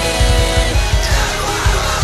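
Heavy rock band recording: distorted electric guitars over fast, even bass-drum hits, with a sung voice coming in about halfway through.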